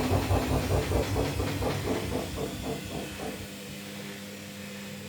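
Haier washing machine drum spinning down: a rhythmic whooshing that slows and fades away over about three seconds, after which only a steady low hum remains.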